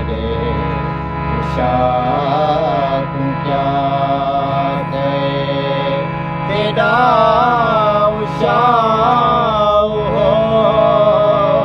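Male voice singing a long, wavering wordless melody in Saraiki folk style over a steady droning accompaniment. The singing grows louder about halfway through.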